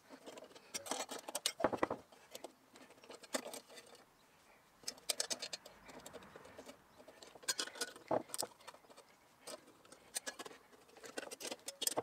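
Metal worm-drive hose clamps being tightened with a screwdriver around a copper boiler barrel: short runs of rapid light clicking as the screw turns against the slotted band, repeated five or so times with brief pauses between.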